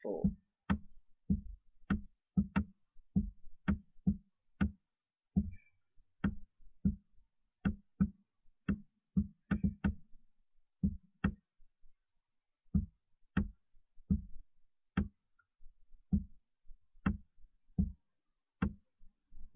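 Computer mouse button clicks, short and sharp with a low thud, coming irregularly about one or two a second, some in quick pairs, with a brief pause about two-thirds of the way through.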